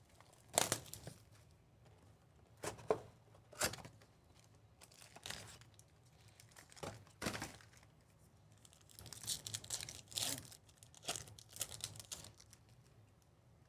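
Plastic shrink-wrap torn off a trading-card box and a foil card pack crinkled and torn open: a series of short rips and crinkles, bunched more closely near the end.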